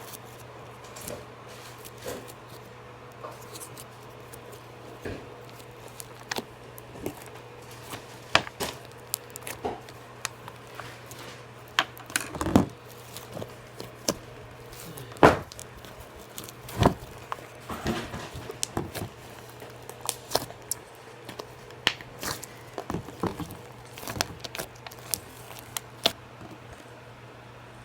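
Slime being squeezed and played with by hand, making irregular sticky clicks and small pops, with a cluster of louder pops in the middle.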